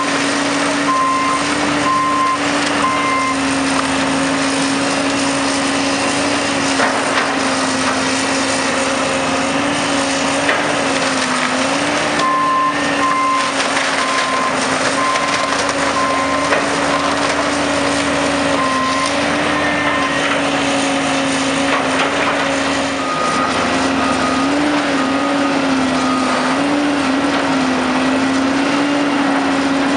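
Diesel engines of demolition machinery, a John Deere 330C LC tracked excavator and a skid steer, running steadily as the excavator bucket works wooden building debris, with scattered cracks and knocks of breaking and falling wood. A backup alarm beeps in several short runs, a slightly higher-pitched one near the end.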